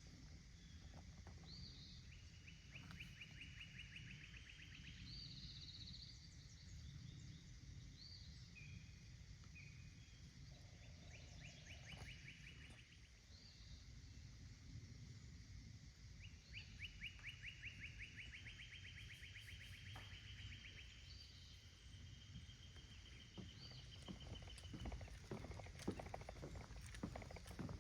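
Faint birdsong: several long, rapid trills and short high chirps over a low rumble, with footsteps on the trail near the end.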